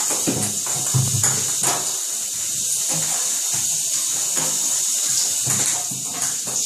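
A ping-pong ball rolling and clattering across a bathtub floor as a cat bats it, with irregular light clicks and knocks over a steady hiss.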